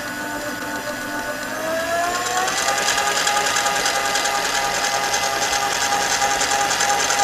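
Electric stand mixer running, beating flour into a cake batter. Its motor whine rises in pitch and gets louder about two seconds in as it speeds up, then runs steadily.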